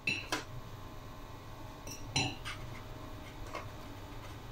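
A few light clicks and clinks as crisp biscuits are picked from a plastic tray and set down on a plate, the loudest with a brief ring about two seconds in.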